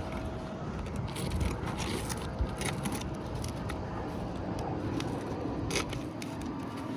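Asphalt roof shingles being scraped and pried loose by hand, with scattered crackles and clicks over a steady low rumble.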